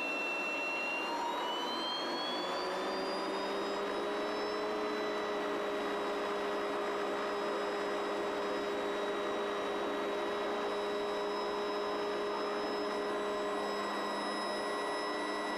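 Helicopter turbine engine heard from inside the cabin, its whine rising in pitch over the first few seconds as it spools up with the rotor turning, then running steady.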